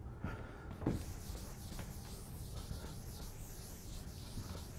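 Felt blackboard eraser rubbing across a chalkboard: a soft, steady scrubbing hiss that rises and falls with the strokes. A single soft thump comes just before it starts, about a second in.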